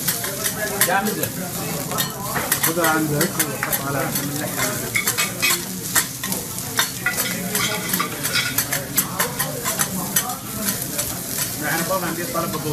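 Metal spatulas scraping and clicking against a hot steel teppanyaki griddle as the chef turns and chops the food, with the food sizzling on the plate.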